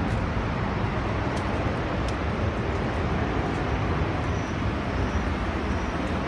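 Steady rush of fast-flowing water, a constant even noise without distinct strikes or changes.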